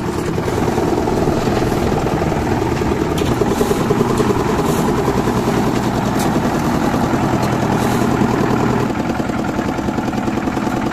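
Single-cylinder diesel engine of a towable concrete mixer running steadily, with light knocks about every second and a half.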